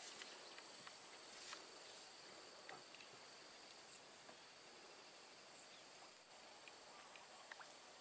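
Insects singing in a steady, high-pitched drone, with a few faint ticks scattered through it.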